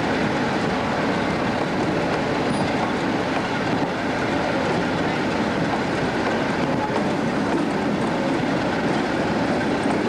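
Class 47 diesel locomotive 47833 standing with its Sulzer twelve-cylinder engine idling, a steady, even running sound.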